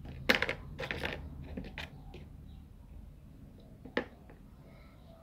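Small plastic toy furniture pieces clicking and tapping as they are fitted together and set down on cardboard. There is a cluster of clicks in the first two seconds and one sharp tap about four seconds in.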